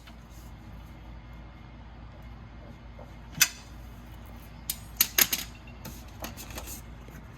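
Tools and metal parts being handled during a rear strut job: a handful of sharp clicks and knocks, the loudest about three and a half seconds in and a quick cluster around five seconds in, over a steady low hum.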